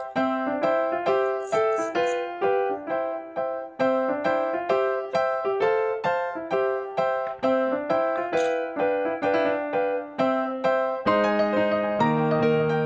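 Background music: a simple keyboard melody of short notes at an even pace, with lower notes joining in about eleven seconds in.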